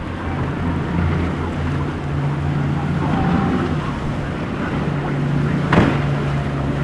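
Outboard-powered motorboat running through the inlet: a steady low engine drone over the rush of water and wind on the microphone. A single sharp knock comes near the end.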